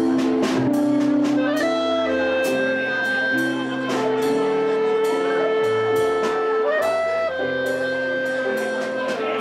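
Small jazz band playing live: a clarinet carries the melody in long held notes over plucked upright bass and piano, with a steady beat of cymbal and drum strokes.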